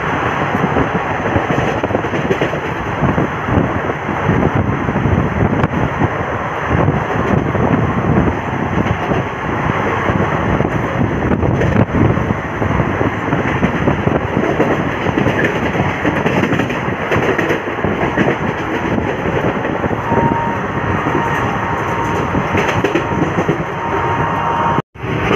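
Express passenger train running at speed, heard from an open coach doorway: a loud steady rush of wind and wheels with the rattle of the coaches on the track. A thin steady tone sounds for a few seconds about twenty seconds in.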